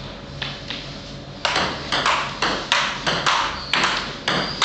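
Table tennis rally: the celluloid ball clicks sharply off bats and table. There are a couple of lighter taps near the start, then a steady back-and-forth of hits about three times a second from about a second and a half in.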